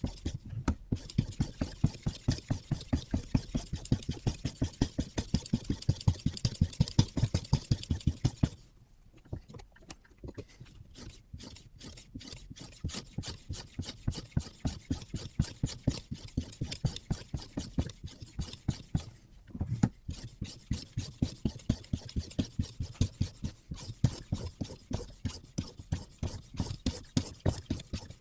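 A sharpening stone on a Hapstone RS guided-rod sharpener stroked quickly back and forth along the edge of a carbon-steel bushcraft knife, a rasping scrape about four times a second. The strokes turn softer for a few seconds about a third of the way in and pause briefly about two-thirds of the way in.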